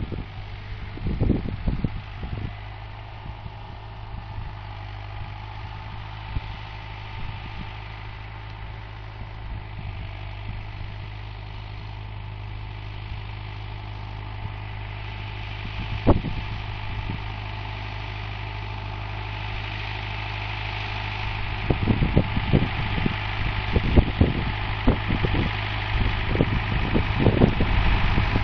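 David Brown 996 tractor's four-cylinder diesel engine running steadily while pulling a mounted maize planter, growing louder as the tractor comes closer. Scattered thumps stand out about a second in, once midway, and many times over the last several seconds.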